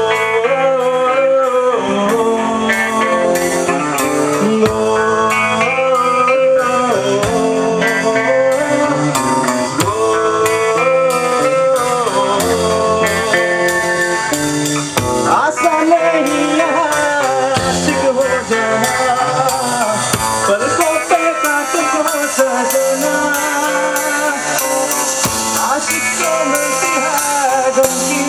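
Live rock band playing a Hindi song: a male lead voice singing over guitar and a drum kit, with steady cymbal strokes keeping time.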